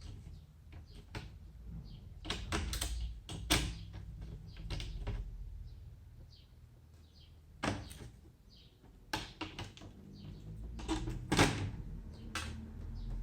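Irregular clicks, taps and knocks of hard plastic and small parts being handled, as on a laptop taken apart for repair, with a low rumble underneath.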